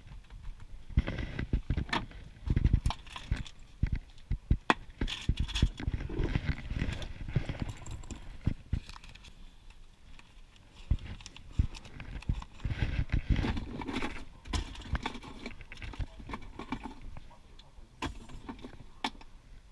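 Irregular clicks, knocks and rustles of handling inside a car cabin, with a few low thumps among them.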